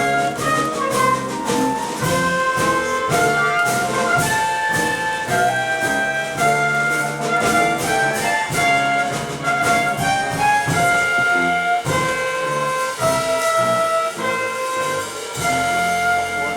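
Brass-led instrumental music, trumpets to the fore, with many changing melody notes over a steady percussion beat.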